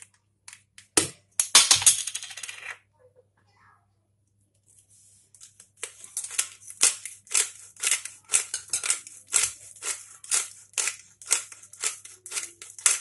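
Black pepper dispensed from a glass pepper container with a metal top over a bowl. There is a sharp click about a second in and a short rattling scrape, then from about six seconds a steady run of quick strokes, about three a second.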